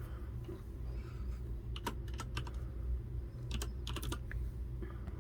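Computer keyboard typing: a few scattered keystrokes, with two quick runs of keys about two and four seconds in.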